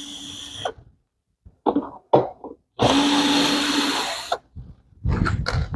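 Cordless screwdriver running in two spells, about a second and a half long, as it backs out two screws, with brief knocks of handling between and after.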